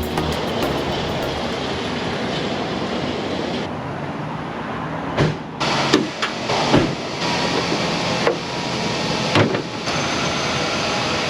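Steady rushing mechanical noise, like a running fan or engine, with about five sharp knocks and clunks in the second half.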